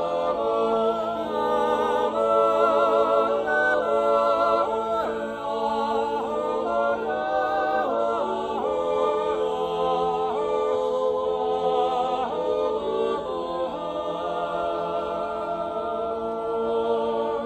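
Six men singing an Appenzell Zäuerli, a slow wordless natural yodel, unaccompanied. A lead voice yodels long, wavering notes that glide between pitches, over a steady chord held by the others.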